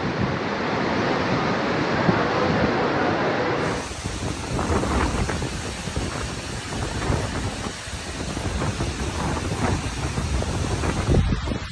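Hurricane wind and driving rain, a steady roar with wind buffeting the microphone. About four seconds in the sound changes to wind with heavy surf breaking along the shore.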